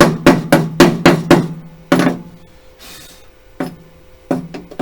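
A hammer rapidly striking the welded steel mower deck, about four ringing metallic blows a second for the first second and a half, then one more blow, a brief scrape, and a few lighter taps near the end: chipping the flux slag off fresh stick welds.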